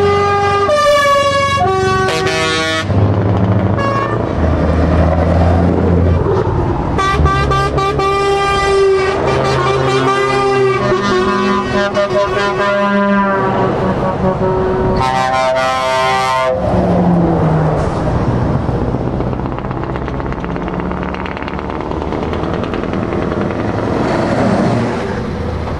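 Big trucks passing close with diesel engines running, sounding loud multi-note air horns in several long blasts, the notes changing within a blast: one near the start, a long one from about 7 to 13 seconds, and a shorter one around 15 to 16 seconds.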